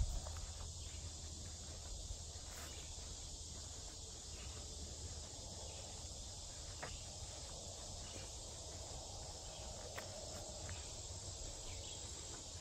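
Steady high-pitched chorus of insects, with soft footsteps on a dirt trail and a low rumble from the phone being carried.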